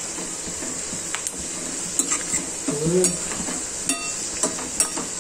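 Sun-dried sliced onions frying in hot oil in a metal kadhai: a steady sizzle, with a metal slotted spoon scraping and clinking against the pan several times as the onions are stirred.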